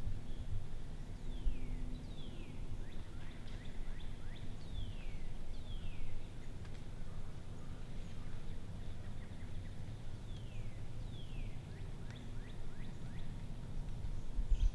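A bird calling with short whistled notes that slide downward, repeated about seven times, some in quick pairs, over a steady low outdoor rumble.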